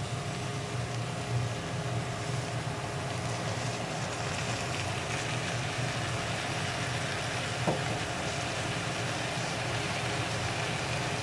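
Shredded cabbage frying in a pan, sizzling steadily as tomato paste thinned with water is poured over it and stirred in with a spatula, with a steady low hum underneath and one short click about three quarters of the way through.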